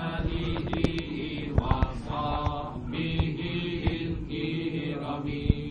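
A small group of men chanting a nasheed together, unaccompanied, in held phrases with short breaks between them. The words are a salawat, blessings on the Prophet Muhammad. Scattered sharp clicks sound over the singing.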